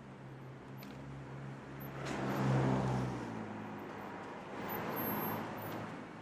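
City street traffic: a vehicle engine running with a steady low hum that stops about three seconds in, and cars passing by, the loudest about two and a half seconds in and another about five seconds in.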